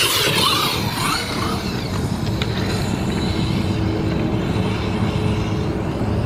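Tekno MT410 1/8-scale RC monster truck with a Castle 1515 2200Kv brushless motor on a 4S battery, driving hard over grass. A high motor whine rises and falls in pitch in the first second or so while it is close, then grows faint as it drives off, under a steady rushing noise.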